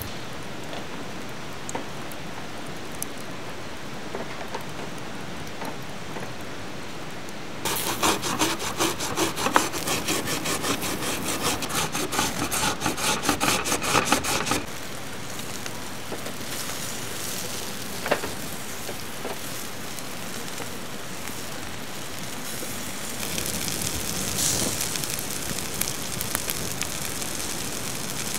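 Pacific saury sizzling on a wire grill over charcoal, a steady hiss with small crackles. About eight seconds in, a daikon radish is rubbed fast back and forth on a fine metal grater for about seven seconds, a loud rhythmic rasping. After that the grill hiss goes on, a little louder near the end as the charcoal crackles.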